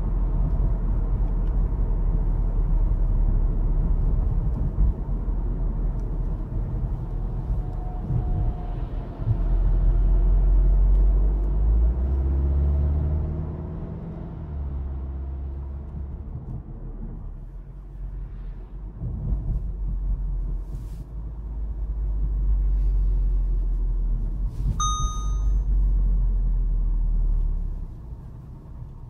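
Low, steady driving rumble inside the cabin of a VW Golf 7.5 R, engine and road noise, rising and falling with speed. Near the end a single dashboard warning chime sounds: the Lane Assist alert asking the driver to take over steering.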